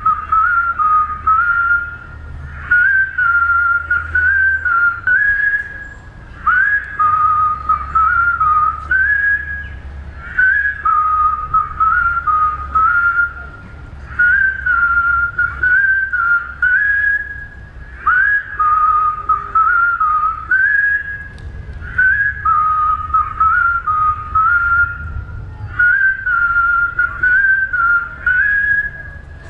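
A large crowd whistling a tune in unison: a short phrase of stepped notes that repeats about every four seconds.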